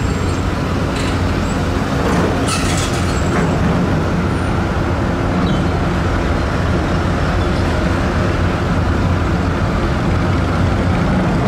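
Steady low rumble of vehicle engines as a pickup tows a boat trailer across a steel ferry car deck, with a few short metallic clanks and rattles about two to three seconds in.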